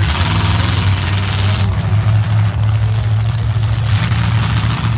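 Demolition derby cars' engines running: a loud, steady low drone with a broad rush of noise over it.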